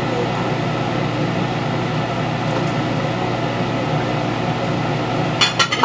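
A steady mechanical hum. Near the end come several quick sharp clinks of a glass plate as a wooden spatula scrapes diced potato off it into a stew pot.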